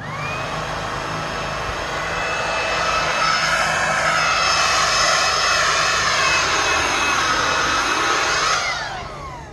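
Handheld battery-powered leaf blower switched on, its motor whining quickly up to speed and blowing steadily with a high whine over a rush of air, louder in the middle. Near the end it is switched off and the whine falls away as the fan spins down.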